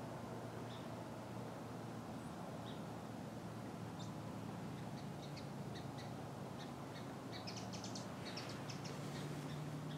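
Faint outdoor ambience: short, high chirps and ticks from small birds, coming more often near the end, over a steady low drone.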